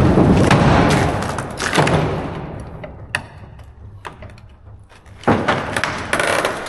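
Several heavy bangs, each ringing out in a long echo that fades over a second or two, the loudest at the very start, others about two seconds in and in the last second and a half, with a single sharp click in between.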